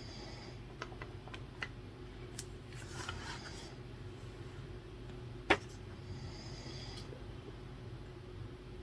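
A sleeping person breathing heavily, with a breathy exhale about three seconds in and another around six to seven seconds in, over a steady low room hum. There are small clicks early on and one sharp tap about five and a half seconds in.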